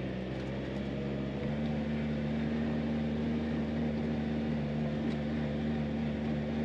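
Side-by-side utility vehicle's engine running steadily under way, its pitch stepping up slightly about a second and a half in.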